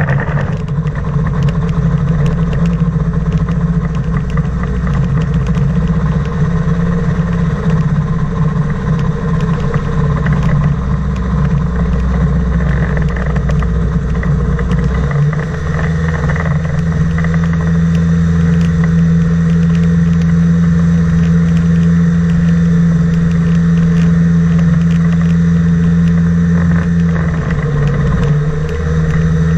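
Propeller engine of a flying inflatable boat running steadily as the craft taxis across the water, a continuous drone that shifts slightly about halfway through and dips briefly near the end.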